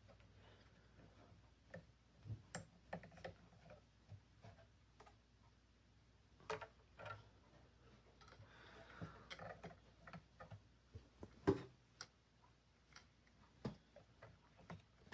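Faint, scattered clicks and taps of small parts being handled and fitted by hand, with the loudest tap about eleven and a half seconds in.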